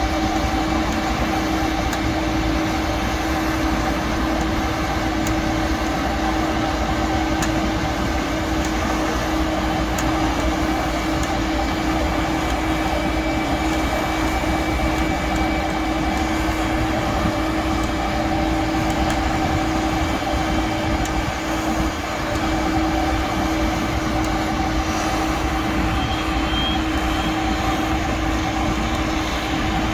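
Heavy machinery running steadily at a constant speed: a continuous drone with a steady hum over it.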